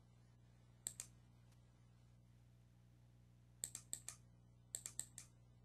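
Computer keyboard keys clicking in short quick runs: two clicks, then runs of four and five keystrokes, over a low steady hum.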